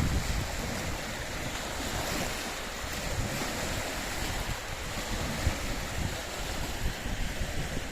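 Small waves on Loch Ness washing against the shore, under steady wind. Gusts rumble on the microphone throughout.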